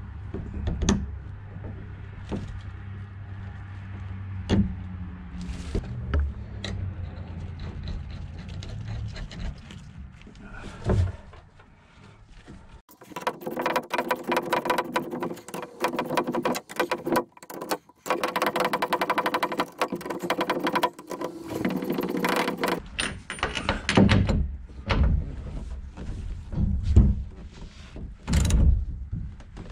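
Hand tools on a sailboat's pad eye bolts: a socket ratchet clicking in quick runs, with knocks and clinks of metal as the nuts are tightened onto the steel backing plate. A low steady hum sits under the first part.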